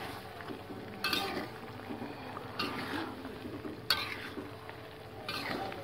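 Metal spatula stirring chicken bones and vegetables in a metal wok of broth. It scrapes and knocks against the pan four times, about every second and a half.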